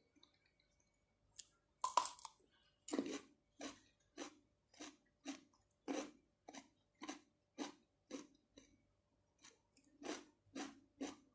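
Close-miked chewing of fresh shrimp and octopus with cucumber: one loud bite about two seconds in, then steady wet chewing at about two strokes a second.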